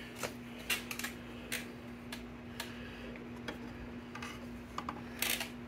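Scattered light metal clicks and taps, about ten of them, as a carburetor is handled and fitted onto its mounting studs on a Vespa scooter engine, with a louder cluster of clacks near the end. A faint steady hum runs underneath.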